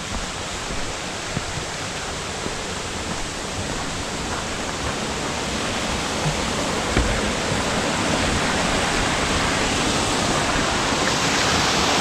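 Mountain brook rushing and cascading over rocks: a steady rush of water that grows gradually louder toward the end, with a few soft low thumps.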